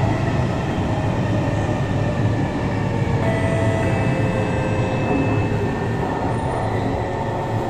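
Kawasaki Heavy Industries C151 MRT train heard from inside a motor car: a steady rumble of wheels on rail with the traction motors' whine layered over it, as the train runs into an underground station.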